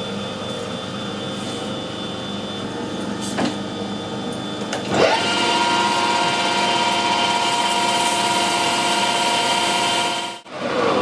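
Metal lathe with a steady hum, its spindle and chuck spinning up about five seconds in with a rising whine, then running steadily at speed with a whine as it turns the worn live-centre shaft for polishing. The sound cuts out briefly near the end.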